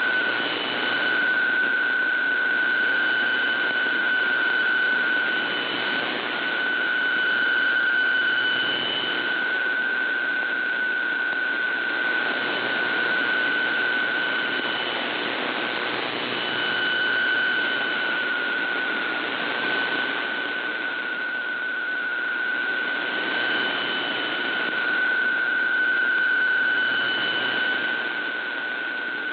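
PSK125R digital text signal received on shortwave: one steady data tone over a hiss of static. The tone breaks off briefly a few times and the level swells and sinks as the signal fades, a marginal signal that drops some characters in the decoded text.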